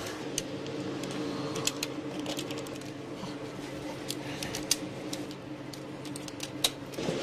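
Irregular light clicks and taps over a steady low hum.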